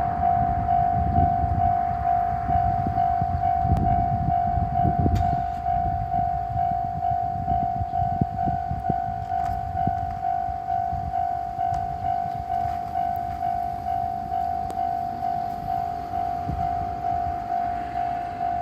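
Japanese railway level-crossing warning bell ringing, an even electronic ding repeated about two and a half times a second. A low rumble sits under it for the first six seconds or so.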